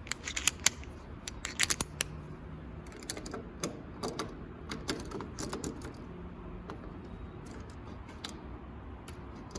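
Small metal parts of a sliding patio door lock clicking and tapping irregularly as the lock is unscrewed and worked loose from the door. The clicks come thickest in the first two seconds, then keep coming scattered.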